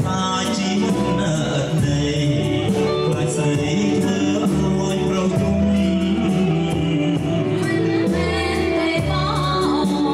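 A live band playing a Khmer pop song through a PA, with electric bass, keyboard and a drum kit keeping a steady beat, and male and female singers trading lines in a duet.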